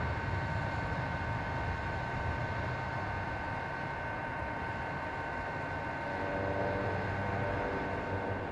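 Dassault Falcon 7X's three turbofan engines at takeoff thrust, a steady jet roar with a low rumble and a faint high steady whine, as the jet lifts off and climbs away.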